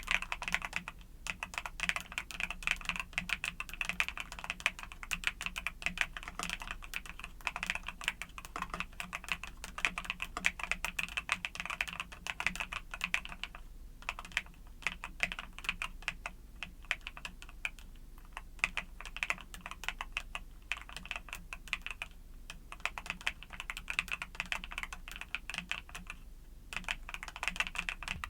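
Fast continuous typing on a mechanical keyboard with YUNZII Cocoa Cream switches, many key clacks a second, broken now and then by brief pauses.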